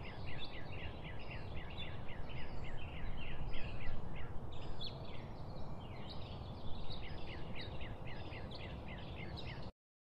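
Many small birds chirping rapidly and continuously, several chirps a second, over a steady low background rumble; the sound cuts off suddenly near the end.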